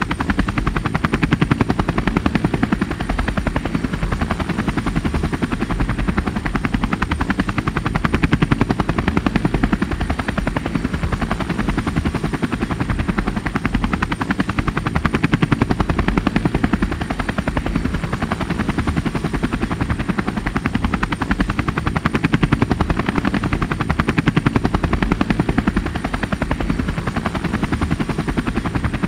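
Small rotor aircraft running steadily, a fast even beating of propellers that swells and eases slightly every several seconds.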